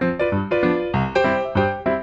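Intro music: a keyboard or piano melody of quick struck notes, about three to four a second, each dying away.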